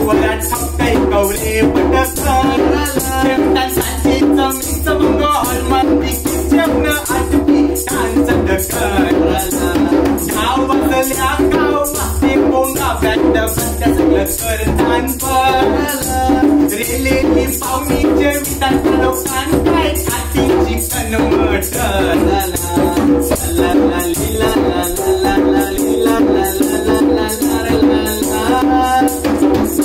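East Indian folk music from a small home ensemble: a shaker keeps a steady beat of about two strokes a second over hand drums, with a man singing over it.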